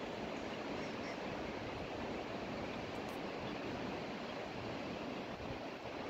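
River water rushing: a steady, even hiss of flowing water.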